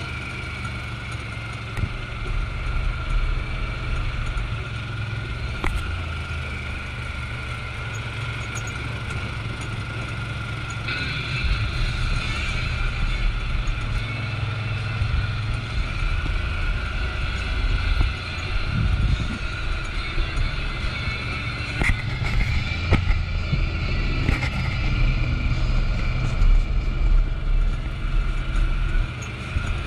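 Vehicle driving on the road, a steady engine and road rumble that grows a little louder about eleven seconds in.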